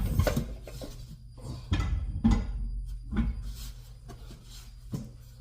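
Irregular knocks and clanks, about five over a few seconds, from a large car wheel and tools being handled while the wheel is mounted on the rear hub.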